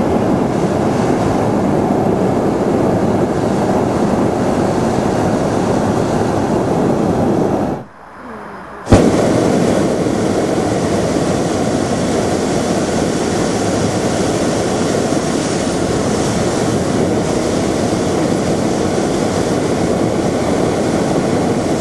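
Hot-air balloon's propane burner firing: a loud, steady rushing blast that cuts out for about a second, about eight seconds in, then relights with a sharp pop and runs on.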